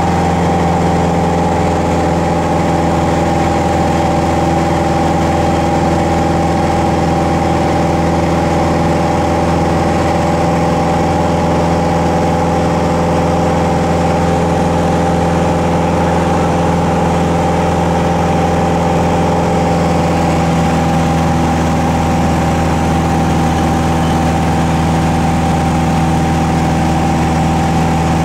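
Piper PA-28's piston engine and propeller droning steadily in cruise, heard inside the cabin. Some of its tones fade slightly about two-thirds of the way through.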